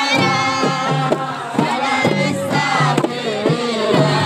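Hadrat chant: a crowd singing together over a steady drum beat of about two beats a second.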